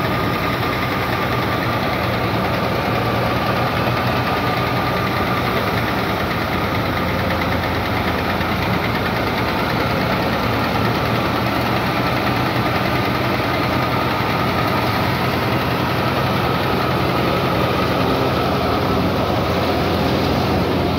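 Fiat 480 tractor's three-cylinder diesel engine running steadily under load, driving a thresher through its PTO shaft, with the thresher's drum and fan running alongside. A thin steady whine sits on top of the dense machine noise.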